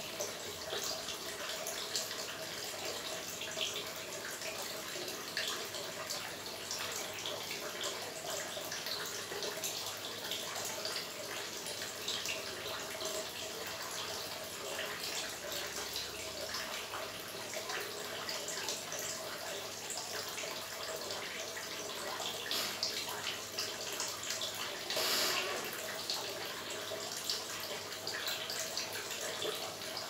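Water steadily trickling and splashing from a small fountain of stacked clay pots into a shallow pond, slightly louder about twenty-five seconds in.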